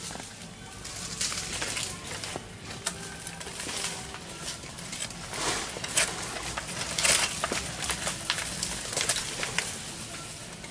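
Birds calling in an oil palm plantation, over repeated rustles and crackles that come thicker and louder in the second half.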